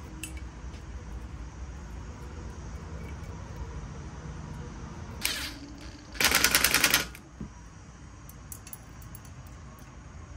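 Cordless impact driver on an extension, running down a side-cover bolt on a small single-cylinder engine block. It gives a short whir about five seconds in, then a loud burst of rapid hammering lasting under a second.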